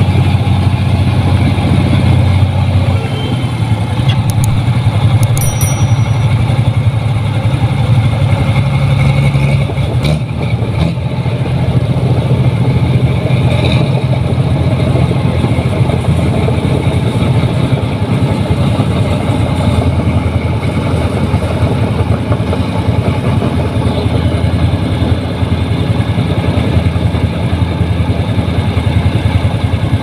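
Engines running steadily at low speed: a New Holland 1545 combine harvester's engine travelling along a road, mixed with motorcycle engines close by.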